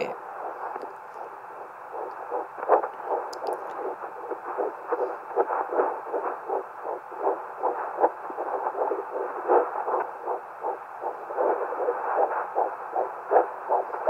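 Hi-bebe (Bistos) handheld fetal Doppler's speaker playing a fetal heartbeat of about 160 beats per minute at 10 weeks 6 days of pregnancy: a rapid, even pulsing of close to three beats a second. The beat is faint for the first couple of seconds, then comes through clearly as the probe holds on the baby's heart.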